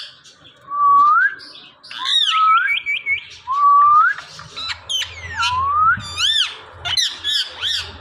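Rose-ringed parakeets (Indian ringnecks) calling: loud rising whistles, sharp upward-sweeping squawks, and a quick run of short chirps about two and a half seconds in.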